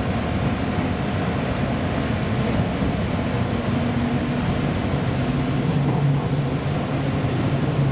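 Interior running noise of a JR Central 211 series electric train's motor car moving at low speed just after departure: a steady rumble of wheels on rail with a low traction-motor hum that grows stronger in the second half.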